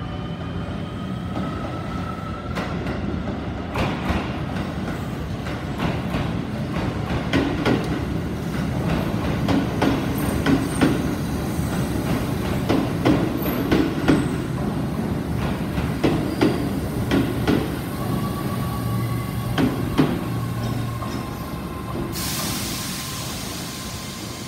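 Keio electric commuter train arriving alongside the platform, its wheels clacking over rail joints with a thin wheel squeal. About two seconds before the end there is a sudden burst of hissing air.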